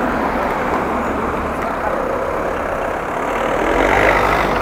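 Steady road traffic noise mixed with wind rushing over the microphone of a moving bicycle. It grows louder near the end as a motor vehicle comes close.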